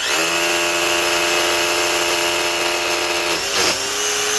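Bosch GBH18V20 18-volt 3/4-inch SDS-plus rotary hammer drilling a 3/16-inch hole in hammer drill mode. It comes up to speed at once, runs steadily, and its pitch dips briefly about three and a half seconds in before it picks up again.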